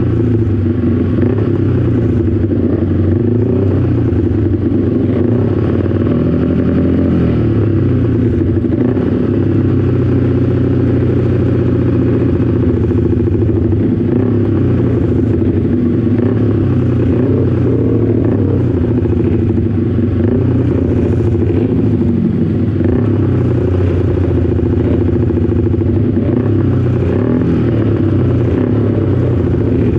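Motorcycle engine idling close up, steady and loud, with its pitch wavering slightly a few times; other motorcycles idle nearby.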